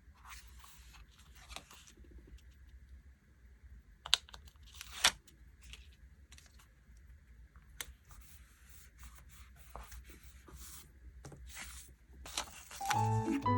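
Paper and sticker sheets being handled in diary decorating: soft rustling and peeling in several stretches, with a few sharp taps, the loudest about four and five seconds in. Piano-like music comes in near the end.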